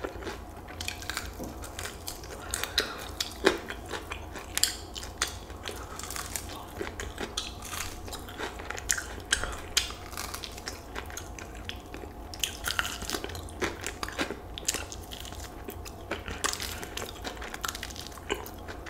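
A person chewing and biting into crispy fried chicken wings: a steady run of irregular crunches and chewing clicks.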